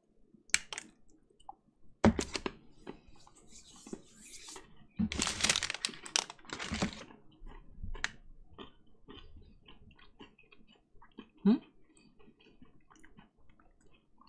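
Crunching bites and chewing of a Maltesers Teasers chocolate bar with crisp malt pieces in it: a couple of sharp crunches at first, a louder stretch of crunching in the middle, then many small crackles as the chewing goes on.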